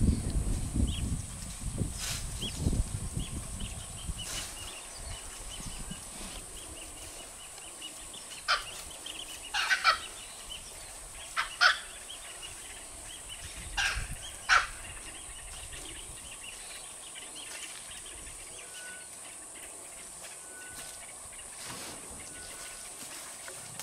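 Dry bush ambience with a low rumble for the first few seconds, then a scattering of short, sharp calls and cracks through the middle, some of them bird-like. A faint, steady high tone runs underneath.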